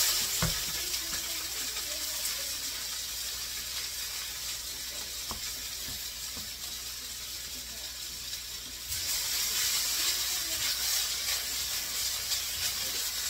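Wide rice noodles sizzling in hot oil in a wok, a steady hiss that grows louder about nine seconds in.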